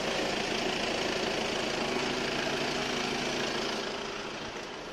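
Audi A6 diesel engine idling steadily, with an even hiss over it; the sound drops a little in level about four seconds in.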